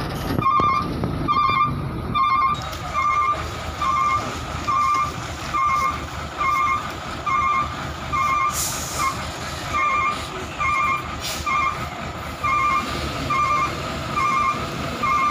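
Truck reversing alarm beeping about twice a second, over the low rumble of a diesel truck engine. Two brief hisses come in the second half.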